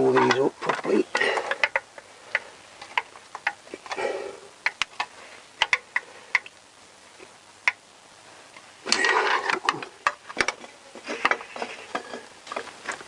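Hand ratchet clicking in irregular short runs as the sump pan bolts are tightened, with a few sharp metal knocks from the tool.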